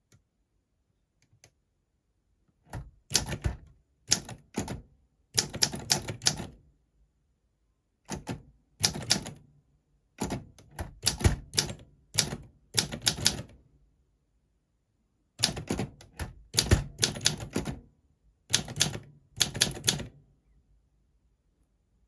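Olympia SM4 manual typewriter (1959, West German) typing: quick runs of key strikes in short bursts separated by brief pauses, starting after about two and a half seconds of quiet.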